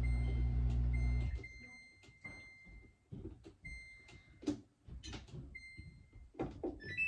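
A steady low hum that cuts off about a second in, then a high electronic beep-like tone sounding several times, each for up to about a second, over scattered soft taps and rustles.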